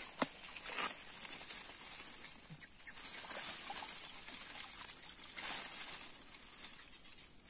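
Steady high-pitched insect chirring, with faint water sloshing and a single click just after the start.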